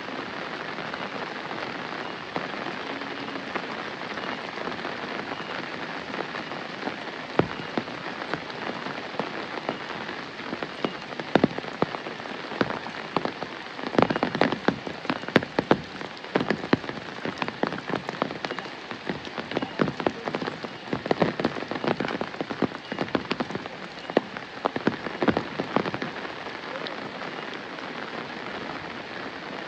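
Steady rain falling, an even hiss. From about 11 seconds in until about 26 seconds, many sharp, close drop hits stand out above it.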